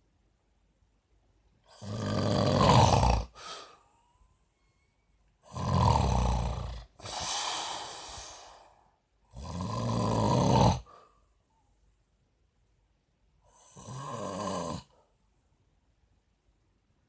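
A man snoring in his sleep: four loud, rough snores about every four seconds, each lasting a second or two, the second followed by a longer, softer breath out.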